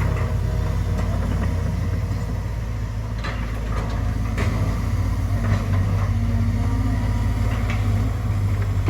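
Engine of heavy construction machinery running steadily, with a few short knocks.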